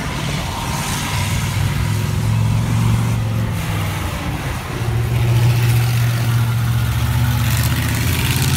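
Monster truck's big engine rumbling low as the truck drives slowly, growing louder as it picks up revs about five seconds in.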